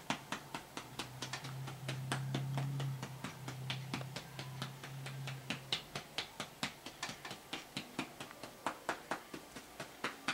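A hand patting a newborn baby's back to bring up a burp, in quick even pats about three a second. A low steady hum runs under the pats for the first half.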